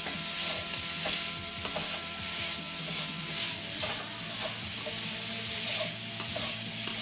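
Chicken, tasso and andouille sausage sizzling in hot oil in a cast-iron skillet while a wooden spatula stirs and scrapes them around the pan with small irregular clicks. The already-cooked tasso and andouille are being browned to release their oils.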